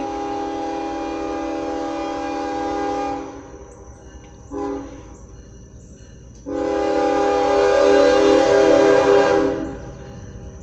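Norfolk Southern freight locomotive's air horn sounding a chord of several steady tones. It gives a long blast, then a short one about four and a half seconds in, then a longer and louder blast that ends about a second before the close.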